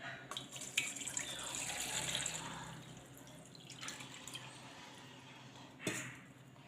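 Water poured from a tumbler into a cooking vessel, splashing for about three seconds and then dying away, with a single knock near the end.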